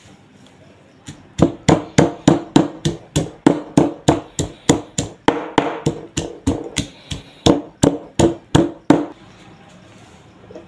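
Stone pestle pounding cut onion in a marble mortar: a steady run of knocks, about three a second, starting about a second in and stopping shortly before the end.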